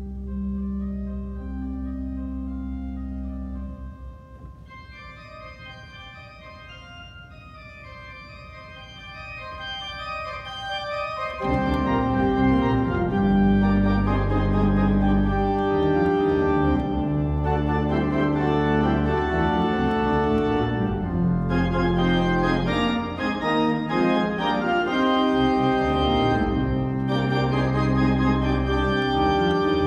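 Church organ playing: held chords over a bass note, then a softer passage of higher notes from about four seconds in that gradually swells. About eleven seconds in the full organ comes in loud, with deep pedal bass under many sustained notes.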